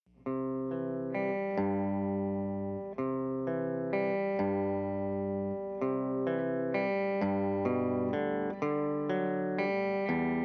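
Instrumental song intro: a lone guitar plays sustained, ringing notes in a shifting chord pattern, with no drums or vocals.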